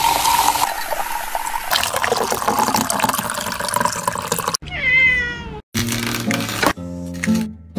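Carbonated drink poured from a can over ice in a glass, fizzing and crackling, followed by a second pour; about five seconds in a cat meows once, and music follows near the end.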